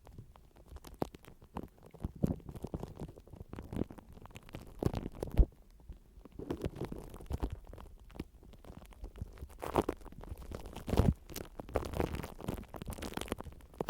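Close-miked rubbing and scratching: irregular, muffled swishes and soft knocks, with a few sharper strokes about ten and eleven seconds in.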